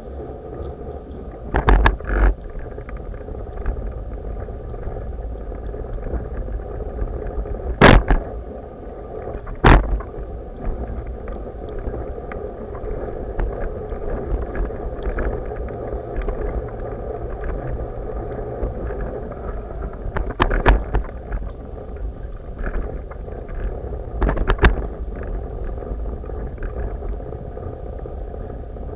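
Evolve 4000 HD Sport hoverboard rolling over pavement, a steady rolling rumble from its wheels broken by several sharp knocks, the loudest about eight seconds in.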